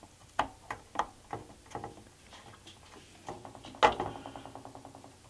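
A DS1230Y RAM module's pins being pressed into a 28-pin IC socket: a string of small sharp clicks, then a louder click near four seconds as the chip seats, followed by a fast, fading rattle of ticks.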